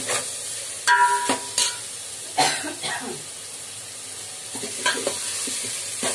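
Steel ladle scraping and knocking against the sides of a large aluminium pot while stirring ground masala frying in oil, over a steady sizzle. The loudest clanks, one with a brief metallic ring, come about a second in; the middle stretch is mostly sizzle before a few more scrapes near the end.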